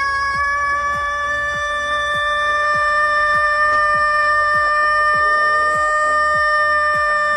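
Rooster holding one very long, unbroken crow at a steady pitch. Under it, a low thump repeats about three times a second.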